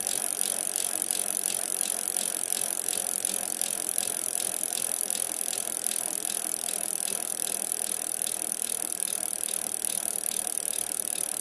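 Flying fox trolley pulleys rolling along the steel cable: a continuous whirring rattle of fast, even ticks under a steady high hiss.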